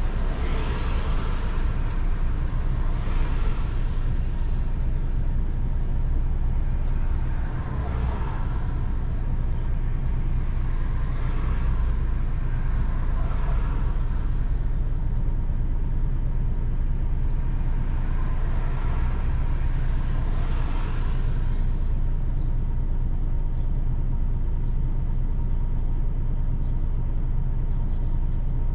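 Road and engine noise from a car driving on a wet road: a steady low rumble, with a swish that swells and fades every few seconds, fewer toward the end.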